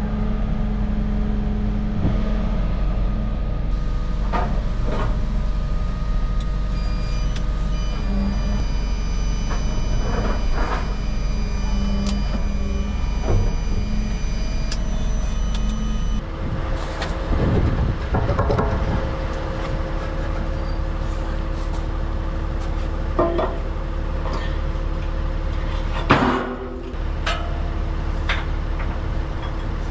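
A vehicle's engine running steadily, with scattered knocks and rattles; the engine note shifts about halfway through, and there is a sharp knock near the end.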